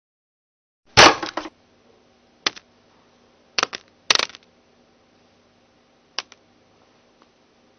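A series of sharp clattering knocks and clicks, like small hard objects dropping: a loud one about a second in, then smaller ones at about two and a half, three and a half, four and six seconds, over a faint steady low hum.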